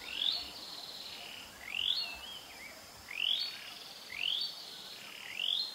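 A bird repeating a short call that sweeps quickly up in pitch, five times about a second apart, over a faint steady high hum.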